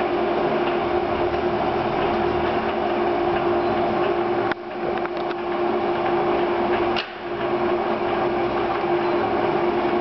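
Takisawa Maxturn geared-head engine lathe running: a steady mechanical hum with one constant whining tone. Two brief clicks come about four and a half and seven seconds in.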